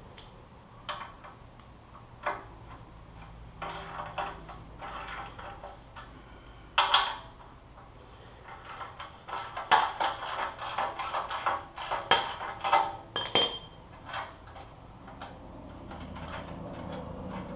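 Metal clinks and knocks of hand tools and exhaust hardware being worked loose while a stock motorcycle exhaust is unbolted. The knocks are scattered, with one sharp clank about seven seconds in and a busy run of clatter a few seconds later.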